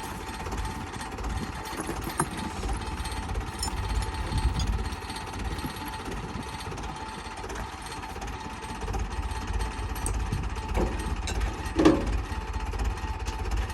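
An engine idling with a steady, rapid low knocking, with a single sharp clunk near the end.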